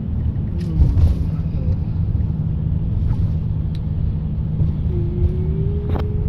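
Steady low rumble of a car on the move, heard from inside the cabin, with a few light clicks and knocks. A faint held tone comes in near the end.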